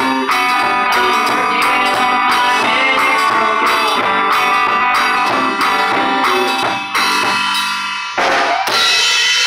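Live band music: hollow-body electric guitar with bass and a steady percussive beat, breaking off about eight seconds in and finishing on a final ringing chord.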